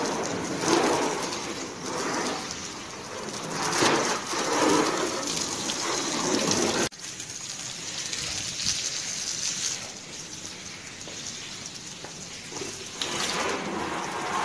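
Water from a hose spraying and splashing onto a car's bonnet and bodywork, swelling and fading as the stream moves. It breaks off abruptly about seven seconds in and carries on more quietly.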